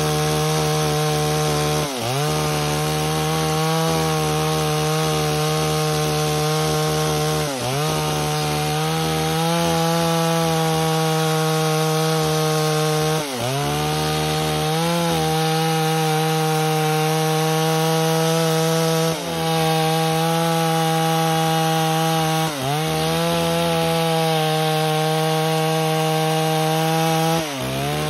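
Stihl 038 clone two-stroke chainsaw running at full throttle, ripping lengthwise through a dry, tough timber beam. The engine note holds steady but dips sharply about six times as the revs drop under the cut and pick straight back up.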